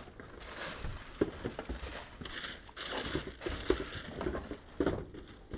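Tissue paper rustling and crinkling as football boots are pulled from cardboard shoeboxes, with light knocks and taps of the boxes being handled.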